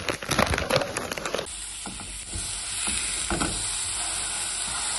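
A plastic packet of sliced cheddar crinkling as it is handled, then, after about a second and a half, two ground-beef patties sizzling steadily in a nonstick frying pan. A plastic spatula scrapes the pan a couple of times.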